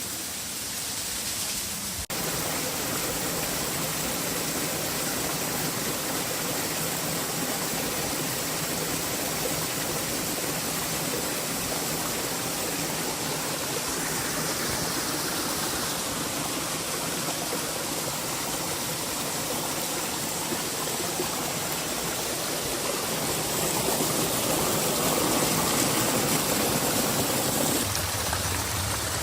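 Steady rushing water, with an abrupt cut about two seconds in and a somewhat louder stretch near the end.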